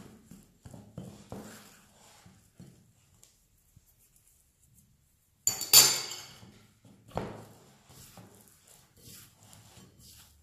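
Metal fork tapping and scraping in a glass mixing bowl of flour and egg, then a loud clink of metal on glass about five and a half seconds in as the fork is put down. After that, soft rustling of hands working the crumbly dough.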